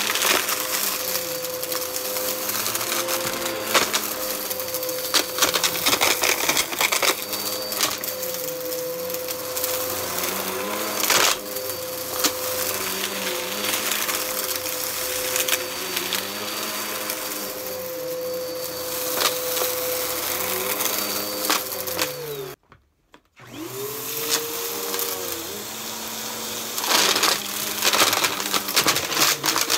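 Bissell bagless upright vacuum cleaner running over carpet, its motor tone wavering as it is pushed and pulled, with crackling and crunching as the brushroll picks up bits of debris. Just over two-thirds through the sound cuts out for about a second, then the motor spins back up.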